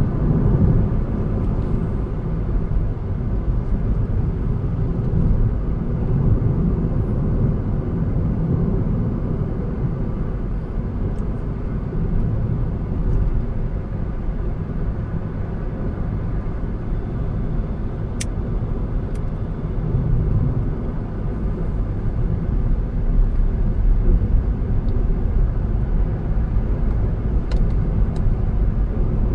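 A car being driven, with a steady low rumble of engine and road noise. A few faint clicks sound now and then.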